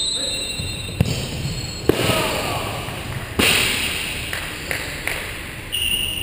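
Futsal ball being kicked and bouncing on a hardwood indoor court: sharp thuds about one and two seconds in and a louder one midway, each ringing on in the large hall's echo.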